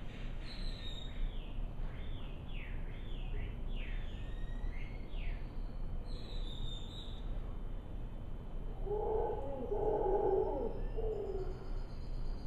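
Howler monkeys calling, a loud, deep burst of calls about nine seconds in. In the first several seconds a bird sings a run of falling whistles, over a steady low rumble.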